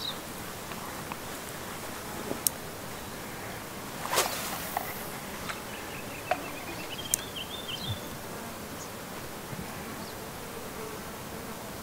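Insects buzzing, with a few light clicks and a brief whoosh about four seconds in.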